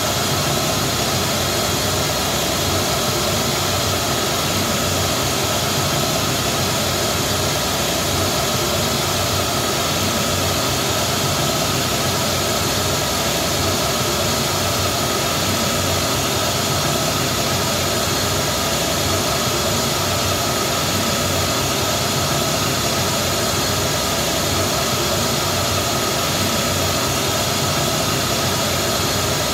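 Steady test noise played through JBL SRX815 loudspeakers and an SRX828SP subwoofer: the test signal for a Smaart Live measurement of the system's frequency and phase response.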